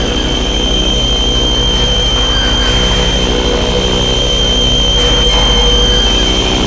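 Improvised noise-rock drone: a loud, dense, steady wall of noise with a fast low buzzing pulse underneath and a thin, steady high whine on top.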